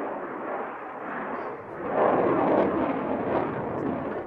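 F-16AM Fighting Falcon's Pratt & Whitney F100 turbofan running in afterburner as the jet manoeuvres overhead, a rushing jet noise that swells about two seconds in and eases off near the end.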